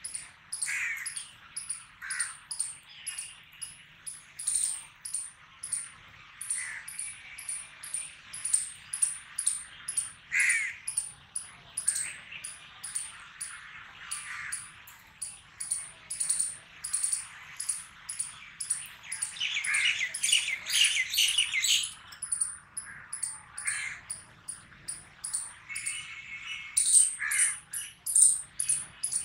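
Crows cawing among a steady run of rapid, high-pitched bird chirps, several a second. A louder burst of calls comes about twenty seconds in.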